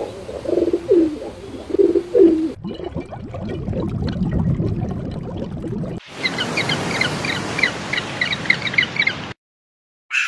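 Three short animal clips in a row: a series of low cooing calls, then a stretch of low rustling and shuffling noise, then a run of rapid high bird chirps that cuts off suddenly.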